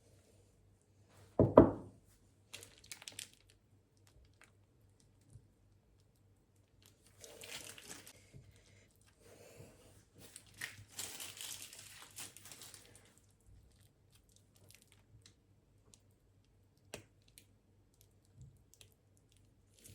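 A heavy thump about a second and a half in, then crinkling and tearing for several seconds, with a few light taps and clicks in a small room.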